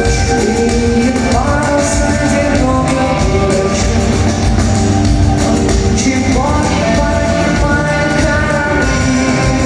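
Loud live rock band music: drums, bass and guitars playing the song, with two rising slides about one and a half and six seconds in.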